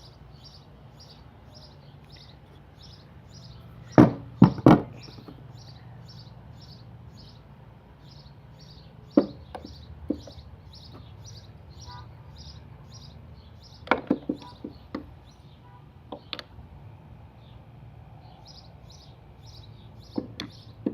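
Scattered sharp knocks and clacks of hard objects being handled and set down on a metal drill-press XY table, in small clusters of two or three. Behind them a bird chirps faintly and steadily, about three short high chirps a second.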